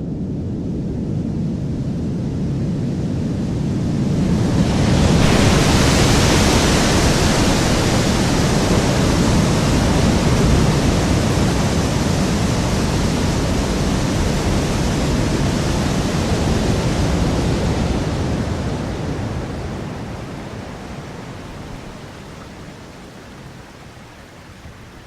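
Designed tsunami sound effect, layered mainly from equalised Niagara Falls waterfall recordings: a deep, muffled rumble of an approaching wave builds, then about four to five seconds in the wave breaks into a full crash of rushing water. The rushing holds steady for a while, then fades away over the last several seconds.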